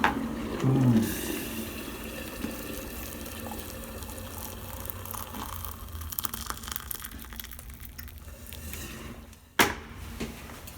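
Hot water poured into a mug for tea, the pitch of the stream rising slowly as the mug fills. A single sharp knock near the end.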